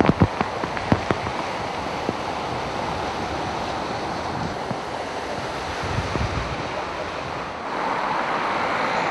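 Muddy floodwater rushing and pouring over a roadside wall and across a road, a steady loud rush of water. A few sharp knocks come in the first second, and the rush grows somewhat louder near the end.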